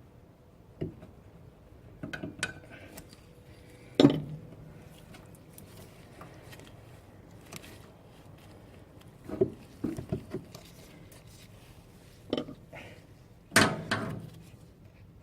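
Scattered metallic clinks and knocks of pliers working a hose clip off a car's fuel hose at the fuel filter. The loudest knock comes about four seconds in, a quick cluster follows about nine seconds in, and another loud knock comes near the end.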